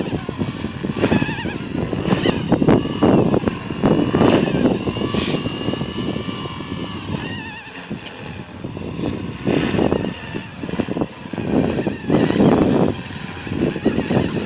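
Blade 230S electric RC helicopter flying 3D, its motor and rotor whine rising and falling in pitch as it manoeuvres. Gusts of wind buffet the microphone in irregular surges.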